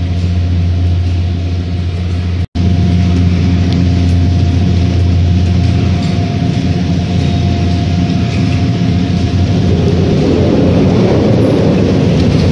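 Poma 12-place gondola lift station machinery running: a steady low hum with a steady higher whine above it, as cabins are moved through the station. It breaks off for a moment about two and a half seconds in, and near the end a rougher rumble rises as cabins roll through.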